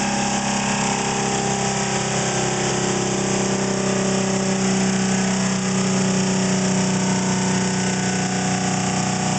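A commutator-fed motor coil driving a Regenerative Acceleration Generator rotor, running steadily at around 1,800 to 2,000 rpm. It gives a steady hum with a strong low tone and several higher whining tones above it.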